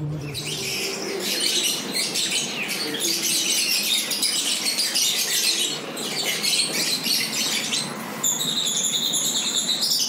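Many caged finches chirping and twittering at once in a dense, busy chorus. About eight seconds in, steadier high notes join.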